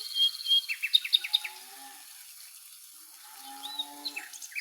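Small birds chirping and calling: a fast high trill at the start, a quick run of sharp chirps about a second in, and more whistled calls near the end.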